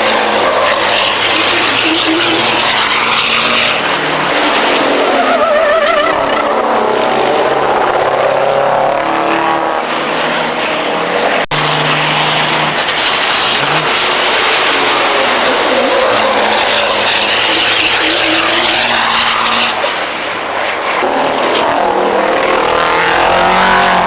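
Diesel racing trucks' engines running hard on a circuit, their pitch rising and falling as they rev and change gear, with some tyre squeal.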